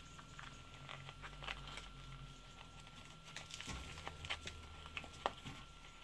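Faint, irregular crackling and rustling of old insulating tape being peeled off a motorcycle wiring loom, the wires and tape scraps shifting on newspaper.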